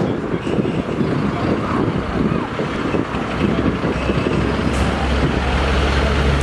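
Fire truck's diesel engine running as the truck rolls slowly closer, its steady low hum growing stronger about five seconds in.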